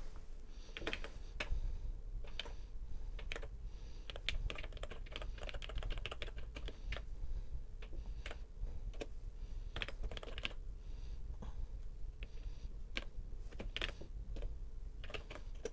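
Typing on a TRS-80 Model 100 keyboard: irregular clicking of keystrokes in quick runs with short pauses between them.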